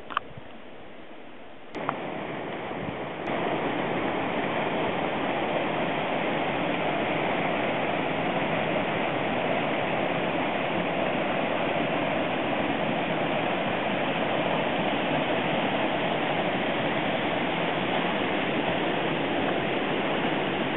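Steady rushing, hissing water noise from steaming hot springs and vents with their runoff flowing past. It comes in about two seconds in and grows louder about a second later.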